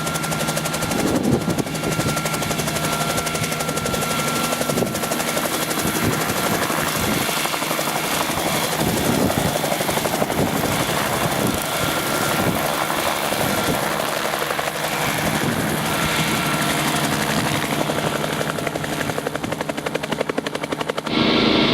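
Bell 47 helicopter running, its rotor and piston engine making a steady, fast, even chop. Near the end the sound changes abruptly to a steadier engine drone with less hiss.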